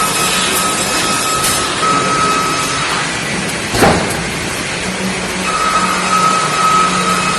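Industrial woodworking machinery running: a steady mechanical noise with a held whine and a low hum. A single sharp knock comes about four seconds in, and the whine drops out for a couple of seconds around it.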